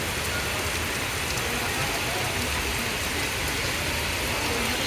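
Heavy, torrential rain falling steadily onto surfaces, an even unbroken hiss.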